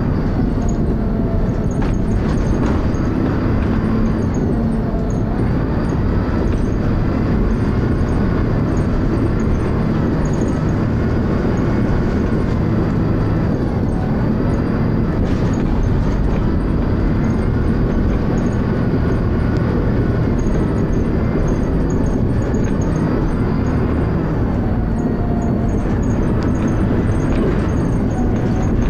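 Dennis Arrow double-decker bus heard from on board, its engine and driveline droning steadily while the pitch slowly rises and falls as it pulls away and slows. A thin, steady high-pitched whine sits above it. The bus has a slipping ZF automatic gearbox.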